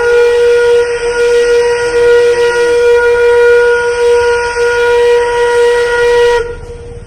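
Darjeeling Himalayan Railway steam locomotive's whistle blowing one long, loud, steady note with a hiss of steam, cutting off sharply about six seconds in.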